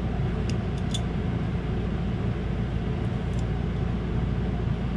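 Steady low mechanical hum, with a few faint light clicks of small metal screws and brackets being handled, several around the first second and one more past three seconds.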